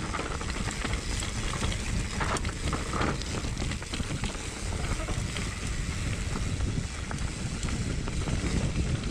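Wind buffeting the microphone during a fast downhill ride, over a steady low rumble of wheels on a rough surface, with a few sharp knocks about two and three seconds in.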